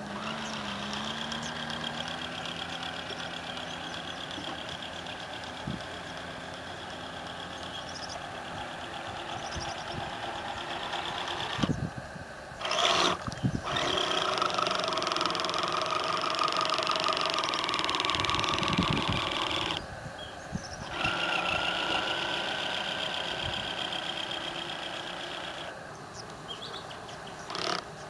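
Electric outboard motor of an RC model speedboat running across water, a steady high whine that rises and falls in strength with the throttle. The whine drops out sharply for short spells three times, with a few sharp knocks after the first drop.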